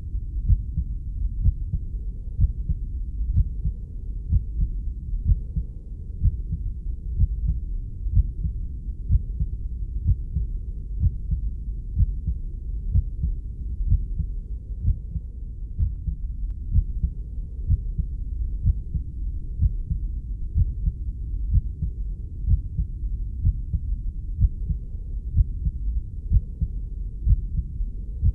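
Muffled heartbeat: a regular run of low thuds over a continuous low rumble.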